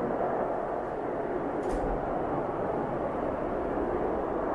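Steady jet noise from a British Airways Airbus A380's four Rolls-Royce Trent 900 engines on final approach, with gear down, heard as the aircraft flies away. A brief low bump comes a little under two seconds in.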